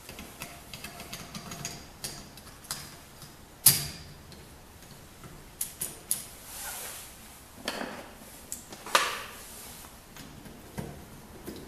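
Entry door lockset being fitted: irregular metal clicks, taps and rattles as the knob halves and their screws are handled, with sharp louder clicks about four seconds in and again about nine seconds in.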